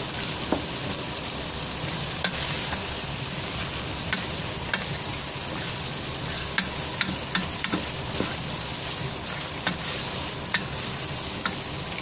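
Chopped gourd cooking in a pot with ginger water and spices: a steady sizzle with scattered sharp clicks and pops.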